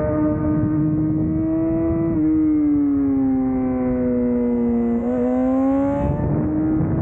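Yamaha R6's inline-four engine running at high revs, heard from on board. Its note holds steady, drops suddenly about two seconds in and sinks slowly as the bike slows, then rises again from about five seconds in as the throttle opens.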